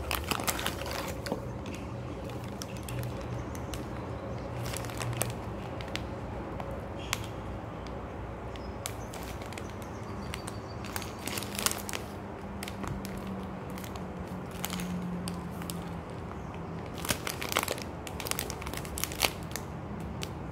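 Clear plant-based film bag of loose-leaf fruit tea crinkling as it is handled and squeezed, in irregular bursts of crackle that are loudest near the end.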